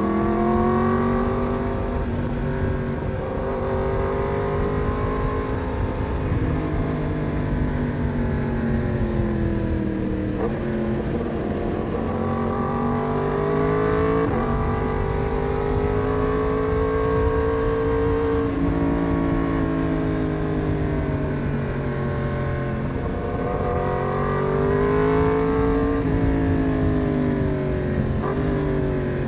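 Yamaha MT-10's crossplane inline-four engine heard from the rider's seat, its note rising and falling over a few seconds at a time as the throttle is opened and rolled off through the bends, with a steady rush of wind and road noise underneath.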